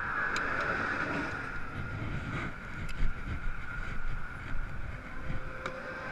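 Road traffic passing by, a steady tyre-and-engine rush, with a few short sharp knocks, the loudest about three seconds in.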